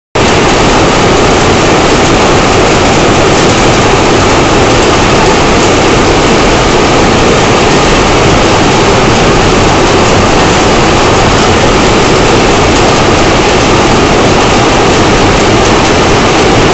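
High-speed rapier jacquard loom running: a loud, steady, dense mechanical clatter with no let-up.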